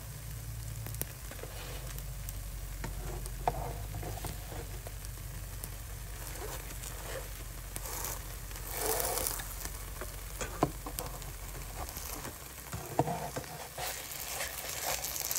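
Thin spinach-wrap batter sizzling steadily in an oiled frying pan, with a few faint clicks and a brief swell of louder sizzle partway through. A low background hum stops near the end.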